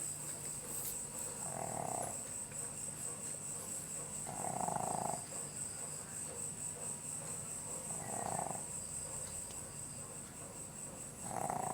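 Snoring in deep, exhausted sleep: a short snore about every three seconds, four in all, keeping the slow rhythm of breathing. A steady high whine runs underneath throughout.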